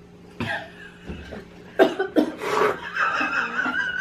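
A person coughing in a few short bursts while eating watermelon fast, followed by a drawn-out wavering vocal sound near the end.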